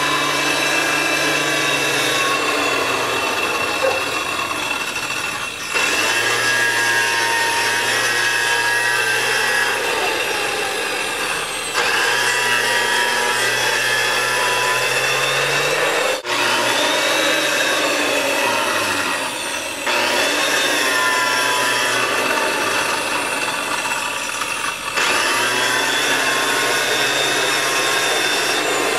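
Handheld electric circular saw cutting into a concrete slab, scoring tile lines: a continuous high motor whine over a gritty grinding. Every five or six seconds the sound briefly dips and the whine climbs back up in pitch.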